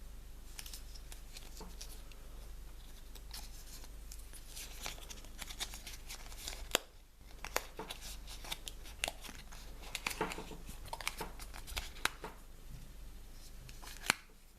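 Toy packaging being handled: a plastic wrapper torn and crinkled by hand in irregular rustles, with two sharp clicks, one about halfway through and one near the end.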